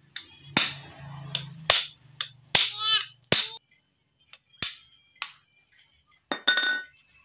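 Sharp metal-on-metal knocks and clinks, about seven spread over several seconds, a couple with a short ring, from tools and parts of a scooter's steering head bearing being worked apart.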